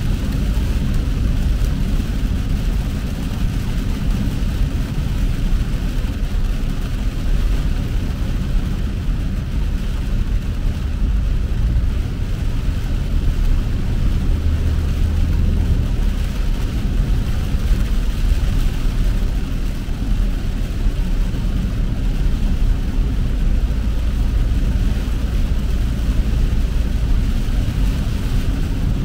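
Car driving on a rain-soaked road, heard from inside the cabin: a steady low rumble of engine and tyres with a fainter hiss over it.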